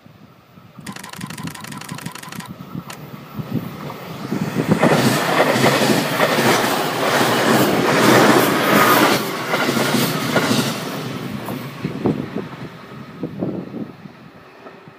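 JR Kyushu 813 and 811 series electric multiple units, coupled together, pass close by. The rumble builds, the wheels clatter rhythmically over the rail joints as the cars go past, and the sound then fades away.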